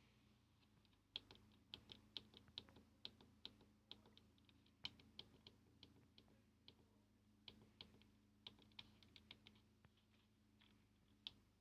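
Faint, irregular plastic clicks, two or three a second with pauses, from the buttons of a Volkswagen Gamma V factory cassette car radio being pressed, over a faint low hum.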